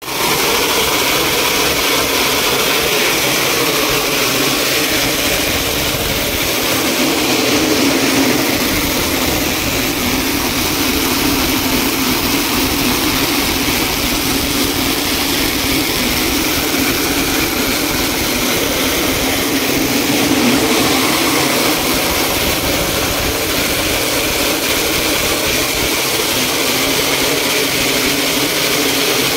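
BOPP tape slitter rewinder machine running, a steady mechanical hum and whir with a hiss over it.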